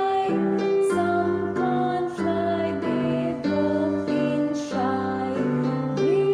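Music for a children's song: a melody in short, evenly paced notes over a light accompaniment.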